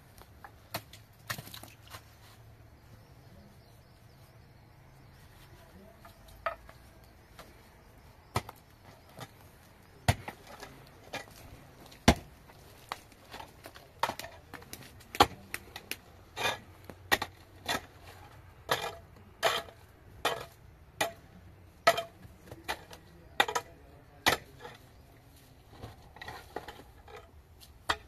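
Pickaxe blows into hard, stony soil while digging: a few scattered strikes, then a quicker run of one or two sharp hits a second in the second half.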